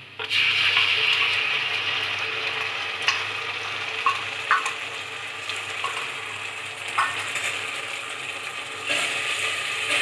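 Ground onion paste dropped into hot mustard oil in a pressure cooker, starting to sizzle loudly all at once and then settling into a steady, slowly easing fry. A few sharp clicks come through the middle, and the sizzle picks up again near the end as a spatula stirs the paste through the oil.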